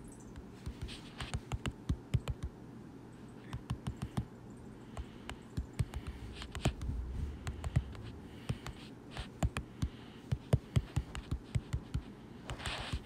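Typing on an iPad's on-screen keyboard: irregular runs of short taps on the glass, with brief pauses between words.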